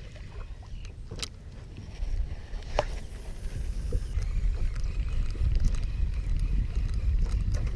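Low rumbling wind and water noise on a chest-mounted camera's microphone, growing louder about two seconds in, with a few sharp clicks.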